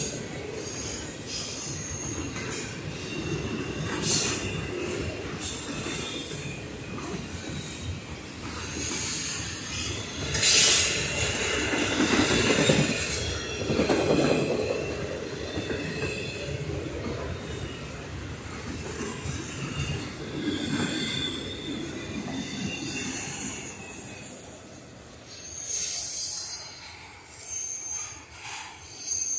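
Double-stack intermodal container cars of a Norfolk Southern freight train rolling past, their wheels rumbling on the rails with high wheel squeals that come and go. The rumble eases near the end as the last cars move away.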